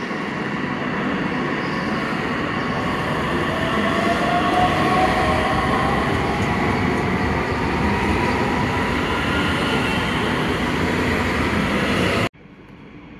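DB class 442 Bombardier Talent 2 electric multiple unit rolling past along the platform. Its running noise is loud and steady and grows a little louder as it passes, with a faint whine rising slightly in pitch midway. The sound cuts off abruptly near the end.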